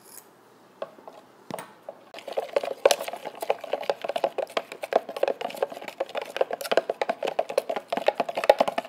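A utensil stirring thick white glue and glitter glue in a bowl, making fast, uneven clicking and scraping against the bowl. It starts about two seconds in, after a few single taps.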